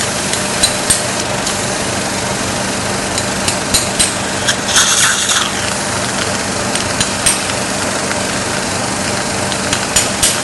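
Irregular light taps of a surgical mallet on a seating instrument, driving a disc-type basal implant into its slot in the jawbone. The taps come in small clusters, with a brief hiss about five seconds in, over a steady hum of running equipment.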